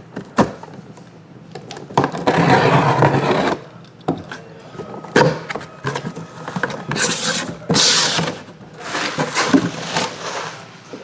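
Cardboard packaging being handled and opened, with long scraping, ripping noises twice and scattered knocks and thumps.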